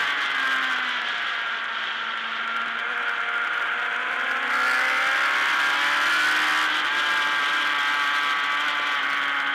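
Race motorcycle engine heard from onboard over wind rush, the revs falling for the first two seconds or so and then climbing again from about three seconds in as the bike drives out of the corner.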